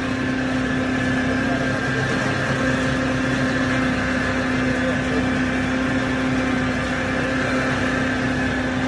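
Sawdust impact pulveriser running steadily, grinding wood into fine powder: a constant hum with a steady higher whine.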